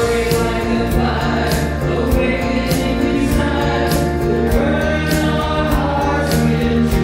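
Mixed group of men and women singing a contemporary worship song in harmony into microphones, over a pre-recorded keyboard backing track made on a Yamaha PSR-SX900 arranger keyboard, with a steady drum beat.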